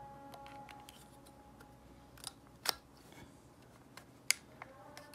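Plastic attachment comb being snapped onto and worked on the blade of a Moser 1400 hair clipper, which is switched off: a few sharp plastic clicks, two of them louder, about two and a half and four seconds in.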